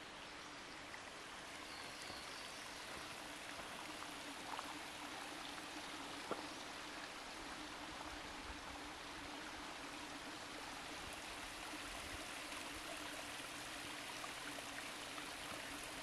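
Small woodland creek trickling and splashing over rocks, a steady water sound that grows a little louder about two seconds in. A single short click about six seconds in.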